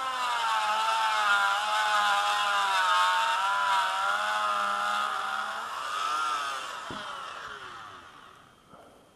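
Small handheld rotary tool running at high speed, its whine wavering up and down in pitch as it grinds away the plastic of a car key fob around the transponder chip. Near the end it is switched off and winds down to a stop, with a single click as it goes.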